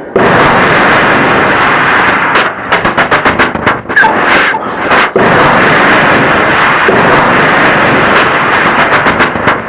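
A man imitating battle sounds with his mouth: long noisy blasts like explosions, broken by stretches of rapid machine-gun-like fire about two and a half seconds in and again near the end.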